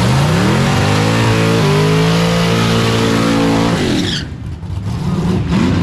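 Chevy pickup drag truck doing a burnout: the engine revs climb over the first second or two and then hold high and steady over the hiss of spinning tires. About four seconds in the revs drop off sharply.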